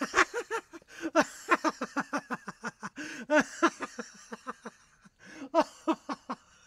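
A puppy yapping at its own reflection in a mirror: a fast run of short barks, about three a second, with a brief pause about five seconds in.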